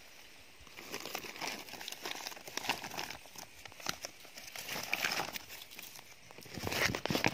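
Dry grass, twigs and dead leaves crunching and rustling, as if stepped through, in quick irregular crackles that start about a second in and get louder near the end.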